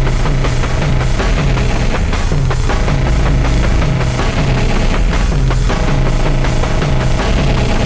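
Dark industrial music: pounding war drums over a dense droning wall of noise, with a low note pulsing about twice a second. A steady higher tone joins about six seconds in.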